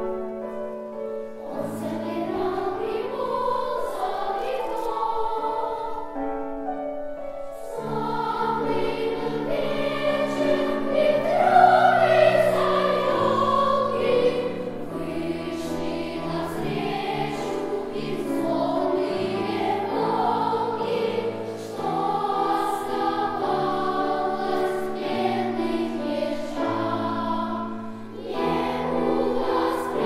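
Girls' choir singing a song together over sustained low instrumental accompaniment, swelling to its loudest about twelve seconds in.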